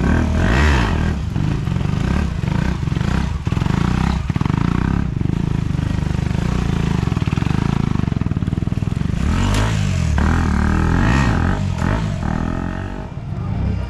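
Stunt motorcycle engine revving, its pitch climbing and dropping as the rider works the throttle to hold a wheelie, with hard revs about half a second in and again about ten seconds in.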